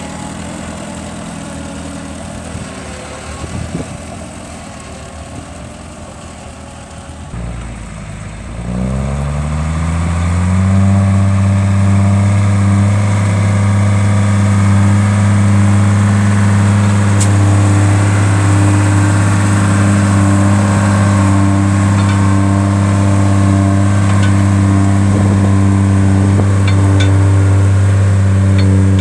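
An engine runs slowly, then speeds up over two or three seconds about eight seconds in, and holds at a steady high speed with a strong, even hum.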